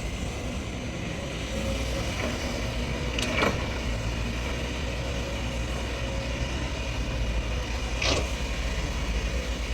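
Hydraulic excavator's diesel engine running steadily as it digs. Two short sharp sounds come about three and eight seconds in.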